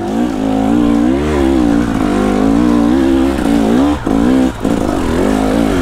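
Two-stroke dirt bike engine revving up and down as the throttle is worked, its pitch rising and falling, with the throttle chopped briefly twice about four seconds in.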